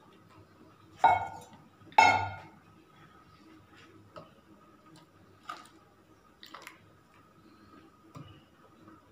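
Two ringing metallic clinks about a second apart, a steel mug and hand blender knocking together, followed by a few faint taps.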